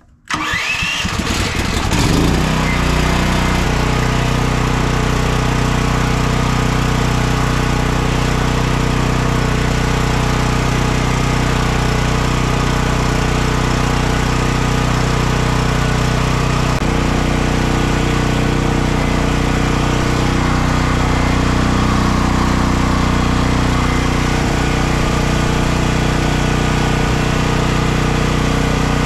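Champion 10,000-watt dual-fuel portable generator's 458 cc engine starting: it catches at once and spins up over about two seconds. It then runs at a steady speed with no load as it warms up.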